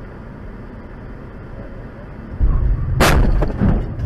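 A car crash recorded by a dashcam inside the car. Steady road noise gives way about two and a half seconds in to a heavy low thump, then a sharp loud crash about half a second later as something slams onto the car's hood. Loud impact noise carries on to the end, with another hit at the very end.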